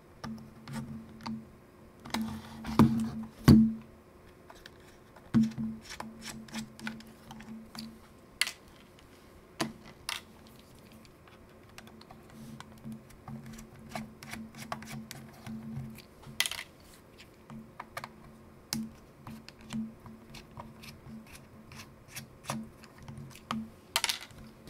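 Small screwdriver clicking and scraping in the screws of a plastic camera body while the camera is turned and handled, giving irregular sharp clicks and taps, with two louder knocks a few seconds in.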